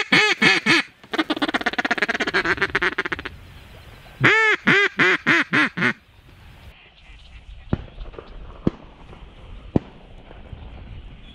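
Mallard quacking, loud and close: a descending run of about five quacks, a fast chatter of short notes, then a second run of about six quacks fading off about six seconds in. A few faint ticks follow.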